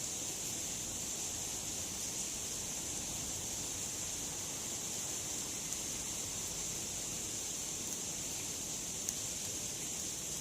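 Campfire burning, with a few faint pops over a steady rushing hiss.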